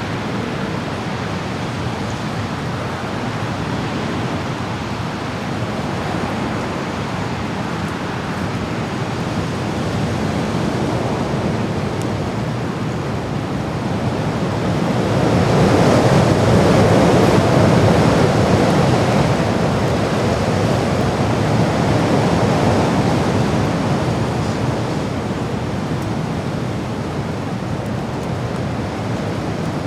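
Wind blowing as a steady rush, swelling into a stronger gust about halfway through and then easing back.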